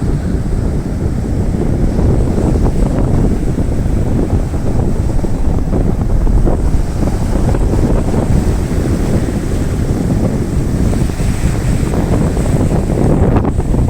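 Strong wind buffeting the microphone in a steady low rumble, with sea surf breaking underneath.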